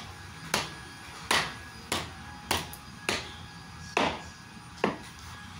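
A series of sharp knocks or taps, seven of them at slightly uneven intervals of under a second.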